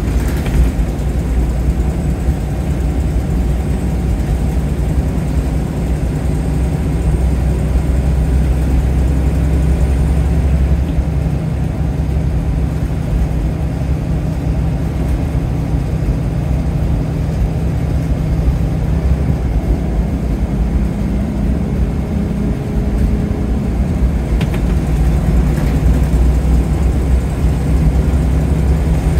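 Scania L94UB Wright Solar single-deck bus's diesel engine running, heard from inside the passenger saloon, a steady low drone whose note shifts a couple of times.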